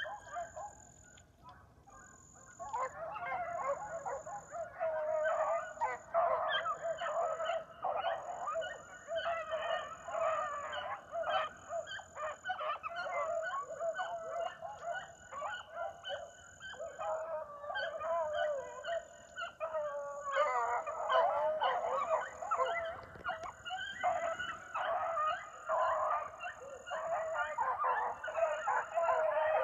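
A pack of young beagles baying on a rabbit track, many dogs giving mouth at once, their voices overlapping. The chorus starts about two and a half seconds in, when the pack takes up the line again after a check, thins briefly near two-thirds of the way through, then resumes.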